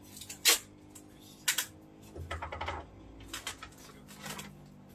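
Handling noises from items and packaging being moved while a box is packed: a few sharp clicks and rustles, the loudest about half a second and a second and a half in.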